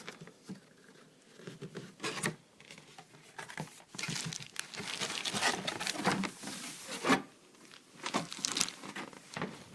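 A large shopping box being opened and its packaging handled: irregular rustling and crinkling, busiest in the middle, with a couple of sharp knocks.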